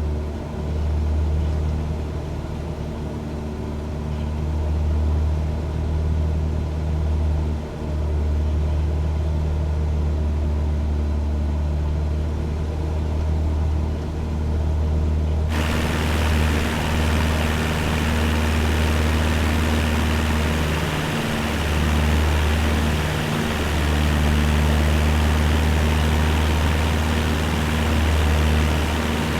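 Cessna 172 light aircraft's piston engine and propeller, heard from inside the cabin as a loud, steady low drone. About halfway through, a rushing hiss comes in suddenly and stays over the drone.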